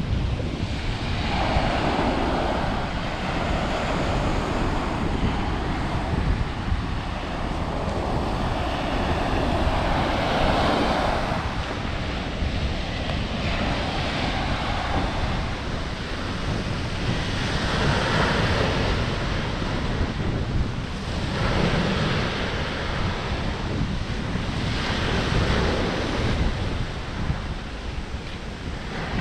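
Sea waves breaking and washing onto the shore, swelling every few seconds, with wind buffeting the microphone.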